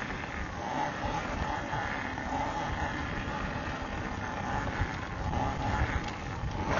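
Electric dirt bike riding: its motor whine rises and falls with the throttle over a rough, uneven rumble.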